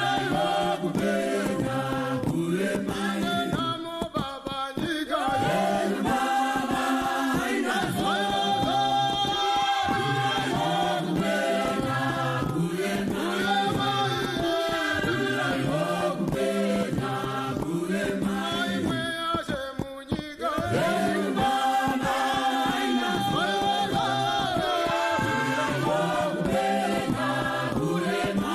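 A group of voices singing a Shona gospel song together in a steady, repeating chant-like phrase, with two brief breaks.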